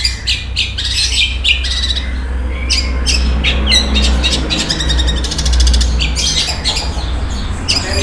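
Long-tailed shrike (cendet) singing a fast run of short, sharp chattering notes, with a brief buzzy trill about halfway through.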